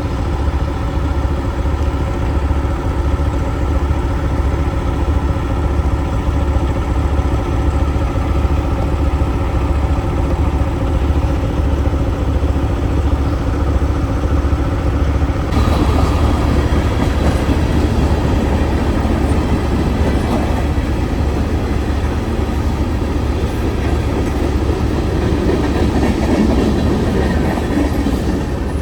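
Logging truck's diesel engine running steadily under way with a constant drone; about halfway through a rougher rumbling noise joins it and stays.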